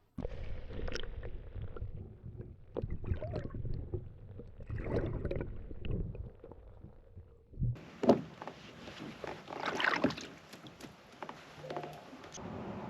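Irregular knocks, bumps and rustles of someone handling gear in a kayak, with water sounds against the hull; one sharper, louder knock about eight seconds in.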